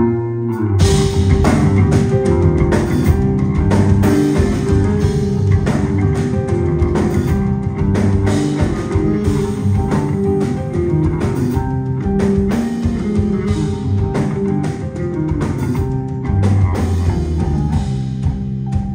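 Live instrumental math rock band playing: electric guitar and bass over a drum kit. A held low note gives way about a second in to the full band with busy drums and cymbals.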